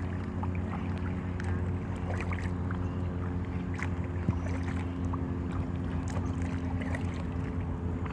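A motor hums steadily at a constant pitch, with scattered small clicks and chirps over it and a single light knock about four seconds in.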